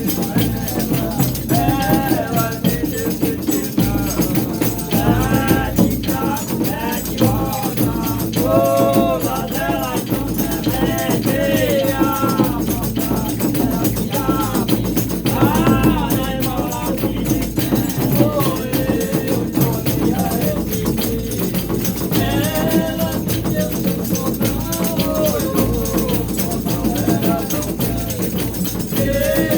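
Reisado folk music: voices singing a melody over tambourines and rattles shaken in a fast, steady beat, with a low accompaniment underneath.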